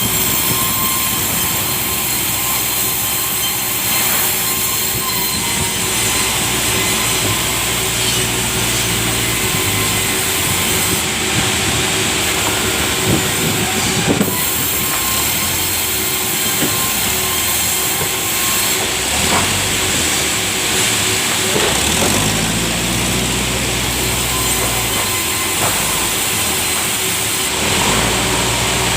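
Sawmill saw running steadily, sawing through a large log.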